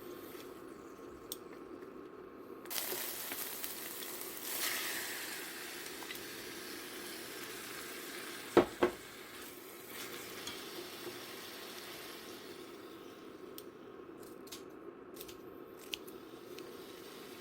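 Food sizzling in a frying pan, starting about three seconds in and dying down later, with two sharp knocks a little past the middle, over a steady low hum.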